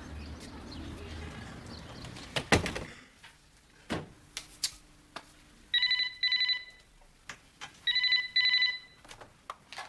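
Landline telephone ringing in the British double-ring pattern: two ring-rings about two seconds apart. Before it, a single loud thump.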